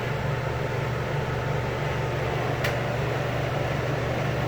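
Window air conditioners running on fan only with the compressors off, a steady low hum and whoosh of air. A single light click about halfway through.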